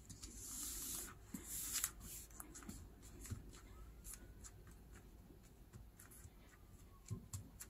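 Hands rubbing and smoothing a sheet of paper laid on a silicone baking tray: faint paper rustling, with two brief swishes in the first two seconds and light scattered taps after.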